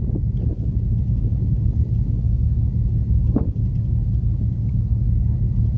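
Steady low rumble of wind buffeting the microphone on the open deck of a moving ferry at sea, with a light knock about three and a half seconds in.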